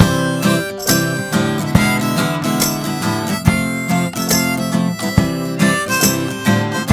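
Live acoustic music: acoustic guitar with harmonica playing over it, on a steady beat.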